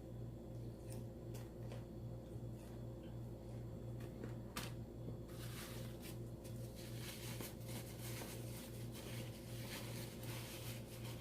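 Close-up chewing of crunchy fried chicken gizzards: soft crunches and mouth clicks, coming thicker in the second half. Under them runs a steady low hum that pulses at an even rate.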